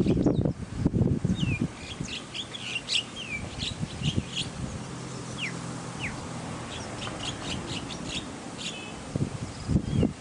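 Small birds chirping and calling over and over, in short high chirps with a few quick downward-sliding notes. A low rumble runs through the first second or so and comes back near the end.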